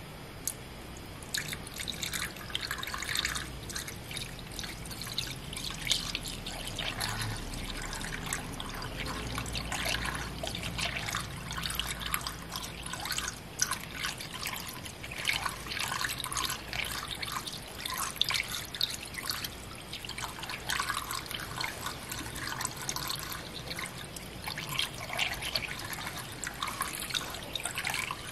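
Pink coolant being poured into the radiator's filler neck, an uneven trickling splash that starts about a second in. The drained cooling system is being refilled after a water pump replacement.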